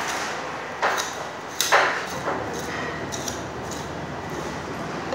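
Knife knocking against bone and a plastic cutting board as a raw leg of lamb is cut up: two sharp knocks about a second in, the second louder, then a lighter tap and a few faint ticks, over a steady background hiss.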